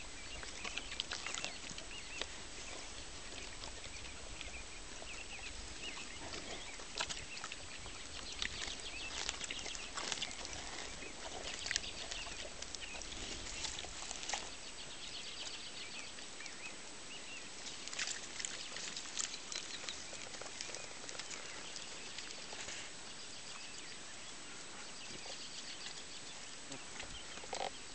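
Pig rooting in pasture sod with its snout, giving irregular short snuffles and crunches of dry grass and earth over a steady hiss.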